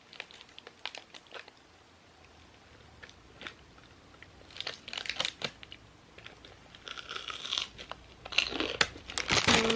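Takeout food wrappers and paper bag crinkling and rustling as they are handled, with scattered light clicks and taps. The rustling comes in short bursts and is loudest near the end.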